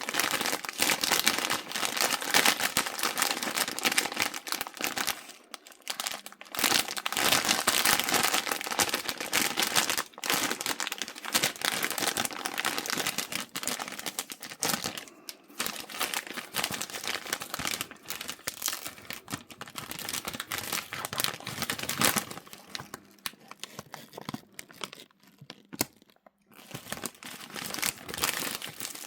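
Cough-drop packaging being crinkled and torn open: dense crackling and rustling with a short pause, growing sparser and quieter near the end.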